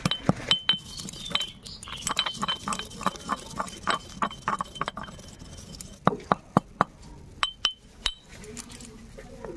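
Stone pestle pounding and grinding dry-roasted cumin seeds in a small stone mortar: sharp knocks and clinks of stone on stone. They come in a quick run of about four a second through the middle, then as a few separate strikes near the end.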